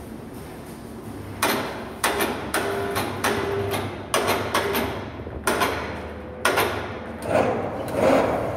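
A run of sharp knocks and clanks, irregular and about two a second, starting a second or so in; several ring briefly after the strike.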